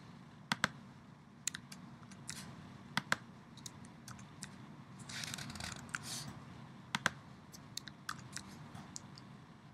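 Irregular computer mouse clicks and keyboard key presses, a dozen or so sharp separate clicks, with a brief soft rustle about five to six seconds in.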